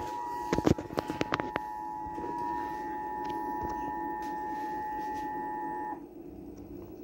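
Emergency Alert System two-tone attention signal, its two tones sounding together as one steady, unbroken chord. A few sharp clicks come about a second in, and the tone cuts off suddenly about six seconds in, leaving a faint hum.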